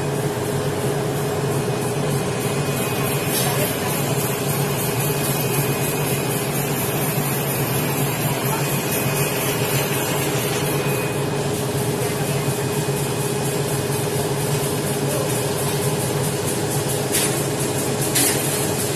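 Steady hum inside an INKA diesel railbus car standing with its doors open: the underfloor diesel engine idling and the air conditioning running. Two brief clicks come near the end.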